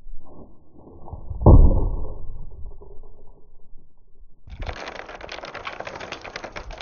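A BB-filled plywood mallet head strikes a wooden beam and bursts, a single heavy, muffled thud about a second and a half in: the BBs' momentum blowing the head's glue joints apart. About three seconds later comes a dense rattle of small clicks as steel BBs scatter and bounce on the beam, stopping near the end.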